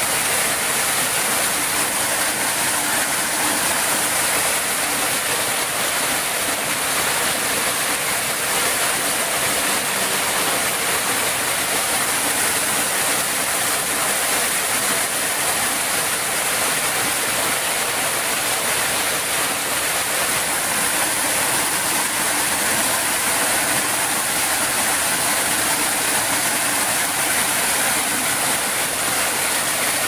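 Stream water rushing over rocks: a steady, even hiss with no break.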